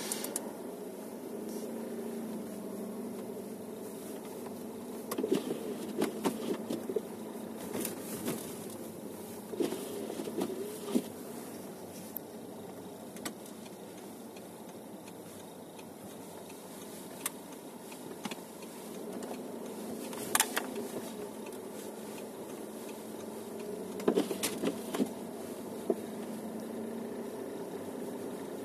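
Steady hum of a car's engine and road noise heard from inside the cabin while driving, with scattered knocks and rattles coming in short clusters.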